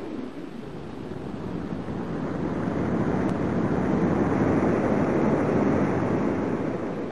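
Rushing sea ambience of wind and waves, a steady noise that swells slowly through the middle and eases near the end.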